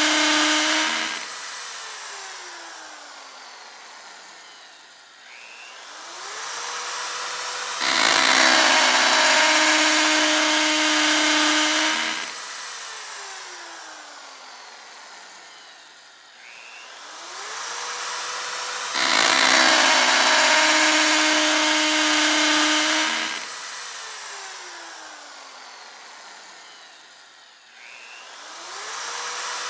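Electric drill run in repeated bursts. Each time it spins up with a rising whine, runs at full speed for about four seconds with a loud, grinding whir, then is let go and winds down with a slowly falling whine. The cycle repeats about every eleven seconds.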